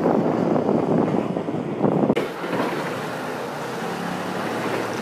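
Engine rumble of junkyard machinery, with wind buffeting the microphone. About two seconds in the sound changes abruptly to a steadier, hissier rumble.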